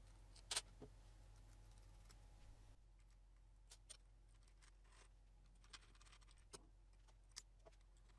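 Near silence broken by small handling clicks: one sharp click about half a second in, then a few light clicks and taps as the plastic gears and clutch of an RC car's three-speed transmission are worked off by hand.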